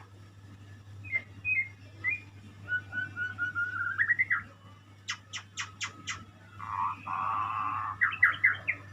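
Murai songbird singing in varied phrases: a few short whistled notes, then a run of rising whistles that speeds up. Five sharp clicking notes follow, then a harsh rasping call about seven seconds in, and a quick burst of notes near the end.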